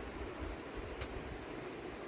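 Steady low background hiss with a single small click about a second in.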